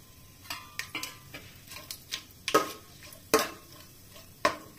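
Metal spoon clinking and scraping against the inside of an aluminium cooking pot while whole spices are stirred in oil: a series of irregular clinks, a few of them ringing briefly.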